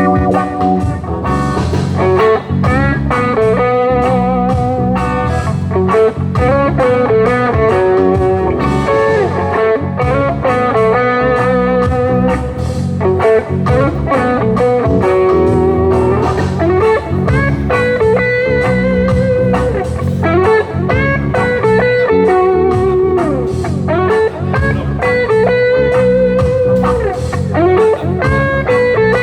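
Instrumental break of a reggae song: electric lead guitar playing a melody with bent, wavering notes over bass guitar and a steady beat.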